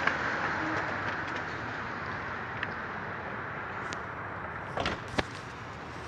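Steady outdoor background noise that slowly fades, broken by a few brief knocks or clicks, the loudest about five seconds in.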